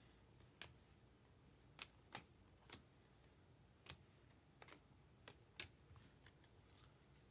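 Faint, irregular clicks and taps of baseball trading cards being handled and flipped through, about ten over the span, unevenly spaced.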